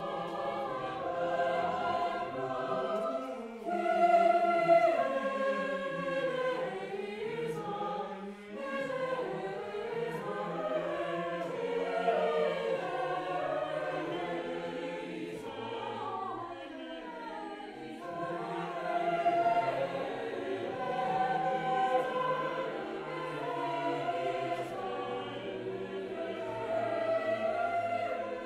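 Mixed chamber choir singing in parts, with held notes that swell and ease, loudest about four seconds in.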